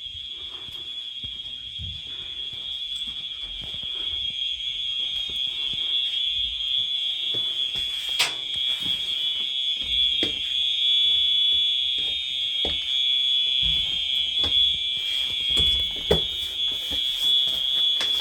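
Fire alarm sounding a steady, high-pitched tone, which grows louder about four seconds in, with a few sharp knocks and clicks over it.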